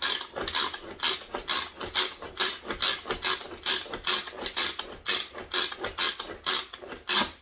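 Manual kitchen food chopper being worked in quick repeated strokes, about two a second, its blades clattering through whole water chestnuts.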